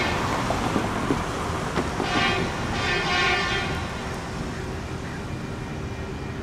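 Horn from a track maintenance machine sounding short blasts, one at the start and two more a little under a second apart about two seconds in, over the rumble of street traffic. A few sharp knocks come about a second in as a pickup rolls over the crossing rails.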